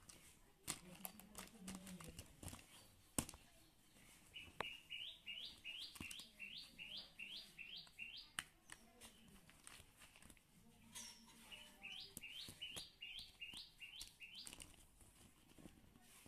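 A bird chirping in the background: two runs of short rising chirps, about two a second, the first starting a few seconds in and the second a few seconds after it stops. Scattered clicks of plastic toy figures being handled.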